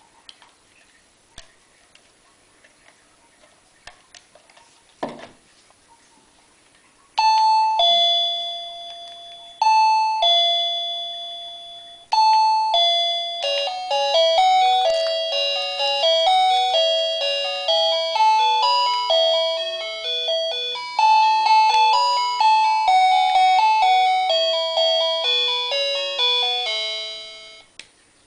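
Battery-powered wireless doorbell chime unit playing its tunes. A few faint clicks and a knock come first. Then a two-note ding-dong sounds twice, followed by a longer electronic melody of quick, decaying bell-like notes that stops shortly before the end.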